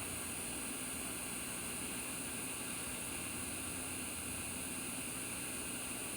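Idle noise of a 5.1 Dolby decoder heard through its speakers: a steady hiss with a faint low hum.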